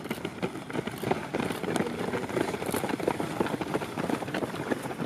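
Footsteps of a group of runners on a dirt track: many feet striking in quick, overlapping steps, growing louder about a second in as the pack passes close.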